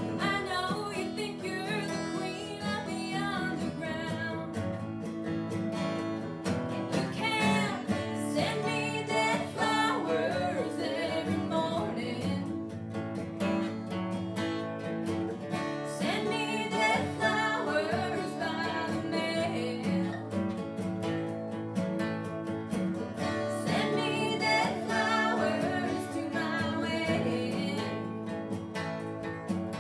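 Two acoustic guitars strummed together through a song, with a woman singing in phrases over them.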